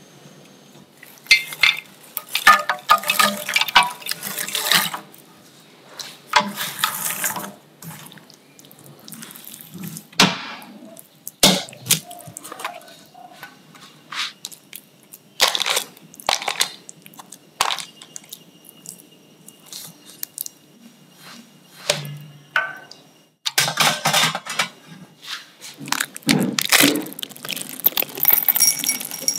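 Broken Marie biscuit pieces clattering, then being stirred and pressed into melted chocolate with a spatula: wet, sticky scraping in a series of short bursts. Near the end, chocolate chips patter into a ceramic bowl.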